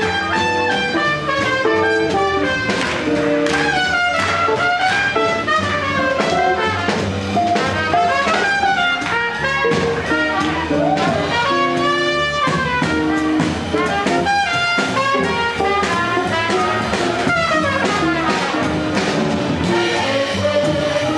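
Swing jazz band playing, with trumpet and other horns carrying the melody.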